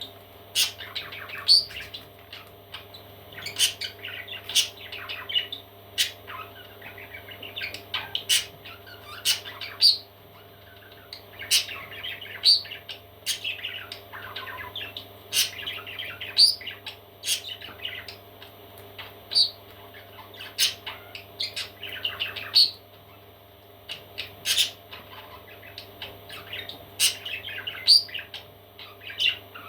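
Parrot chicks chirping and squawking in short, sharp calls, several at a time, with a steady low hum underneath.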